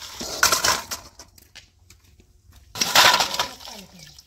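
Two short, rough clattering and scraping bursts from handling a cooking pot of boiled eggs and potatoes, the second, about three seconds in, louder.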